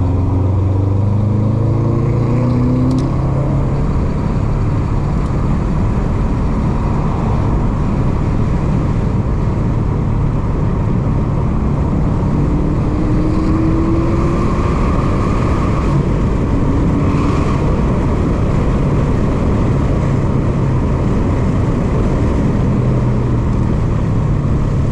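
Subaru WRX STI's turbocharged flat-four engine heard from inside the cabin at speed, over steady road and wind noise. The engine note rises in pitch as the car accelerates in the first couple of seconds and again about halfway through.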